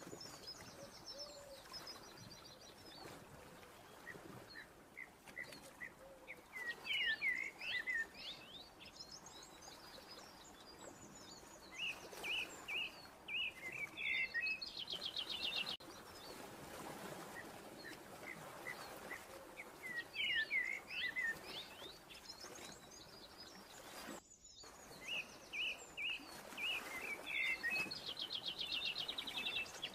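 Small birds chirping and singing over a faint hiss, in clusters of quick sweeping notes and fast trills every few seconds; the same phrases come back about every fourteen seconds, like a looped birdsong ambience track.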